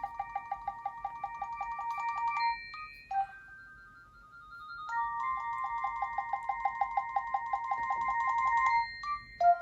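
Nokia 7710 ringtone: a short electronic tune with a fast, evenly pulsing accompaniment. It plays twice, with a pause of about two seconds between, and grows louder through each play.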